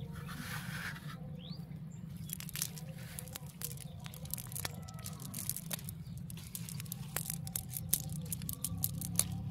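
A weedy fishing net being handled on wet mud, giving quick, irregular crackles and clicks from about two seconds in, over a steady low hum.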